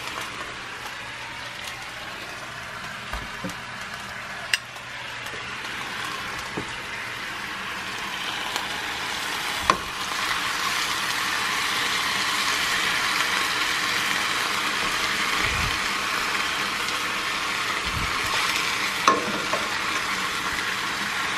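Chunks of brisket searing in hot oil in a frying pan, a steady sizzle that grows louder about halfway through. A few sharp clicks of metal tongs against the pan as the pieces are turned.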